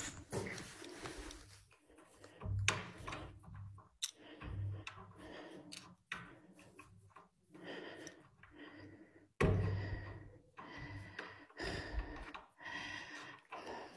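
Faint, scattered knocks and scrapes of a hand working at a wooden door that won't open, with a louder thump about nine and a half seconds in.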